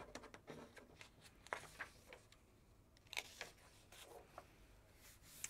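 Faint rustling of a picture book's paper page being turned by hand, with a few soft crinkles and taps of the paper.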